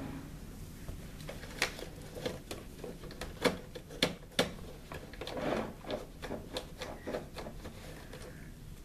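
A soft cloth rubbing over the oiled presser-foot and needle-clamp area of a sewing machine, with irregular light clicks and taps as the metal and plastic parts are handled. A few short rustles come in bursts, the longest about five and a half seconds in.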